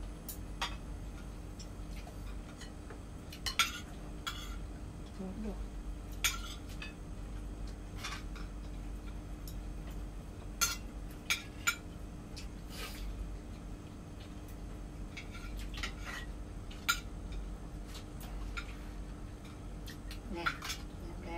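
Spoons and forks clinking against plates and a serving bowl as people eat, a scattered series of sharp clinks every second or two. A steady low hum runs underneath.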